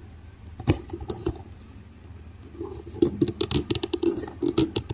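Fingers scratching, tapping and scraping at a cardboard box while trying to prise it open, with a couple of clicks early and a quick run of small clicks and scrapes over the last two seconds.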